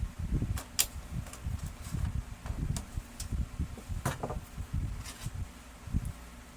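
Irregular low knocks and scattered sharp clicks of laser-printer parts being handled during disassembly or repair.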